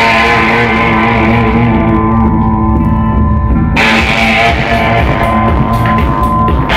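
Rock band playing live: electric guitar and electric bass, loud and steady, with the sound turning brighter about four seconds in.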